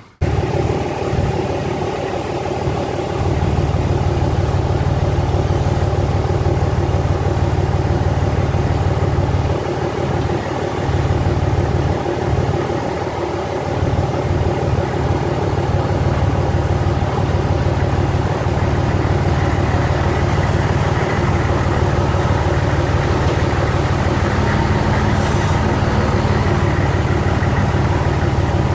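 A vehicle's engine running steadily at a low, even pitch, with a few brief dips in level around the middle.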